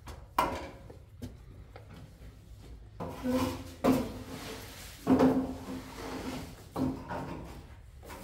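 A few separate knocks followed by short scraping or rubbing sounds, like wooden objects being handled, the loudest a little over five seconds in.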